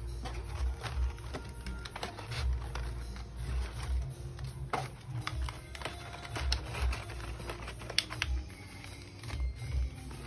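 Plastic blister packs and cardboard being handled as bottles are packed by hand into a cardboard box: irregular clicks, taps and crinkles.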